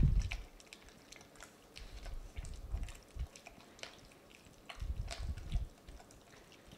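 Thickening cold-process soap batter being stirred by hand in a bowl: soft irregular clicking and scraping of the utensil, with a few dull bumps.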